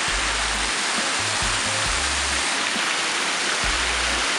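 Steady rush of water from a landscaped resort stream, an even loud hiss.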